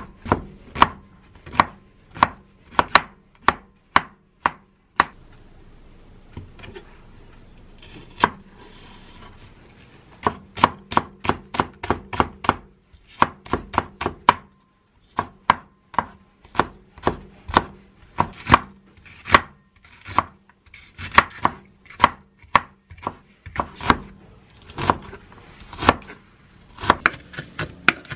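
Chef's knife chopping king oyster mushroom, green onion and onion on a wooden cutting board: runs of sharp knocks of the blade hitting the board, a few a second, with two short pauses.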